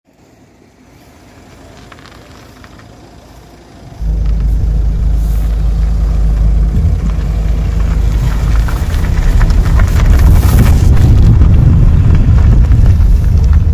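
Honda Amaze turning in a tight right-hand U-turn, heard close to the front wheel: a heavy low rumble with rapid clicking, the kat-kat-kat that comes only on right U-turns and that the owner puts down to the drive shaft. The rumble jumps suddenly louder about four seconds in.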